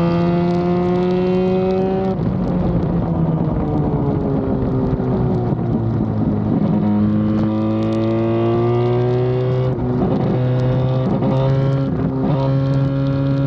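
Norton RCW588's freshly rebuilt twin-rotor Wankel rotary engine at racing speed. It rises in pitch, drops off at about two seconds and winds down through a corner, then pulls up again, with three short breaks in the note near the end as it shifts up.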